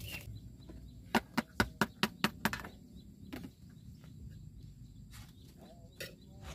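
A spatula knocking and scraping against a wok as fried corn rice is scooped out onto a plate. There is a quick run of sharp clicks about a second in, then a few scattered knocks.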